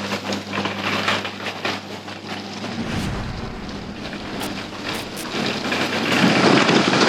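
A vehicle engine running with a steady low hum that stops about three seconds in, followed by a few light clicks and a rising rush of noise.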